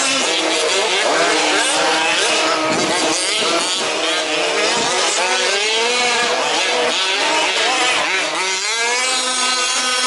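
Several small two-stroke petrol engines of 1/5-scale RC off-road race trucks running at once, their pitch rising and falling over and over as they accelerate and back off around the track.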